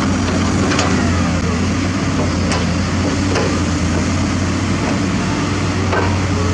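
Heavy diesel construction machinery running steadily with a low engine hum, and a few sharp metallic clanks scattered through it.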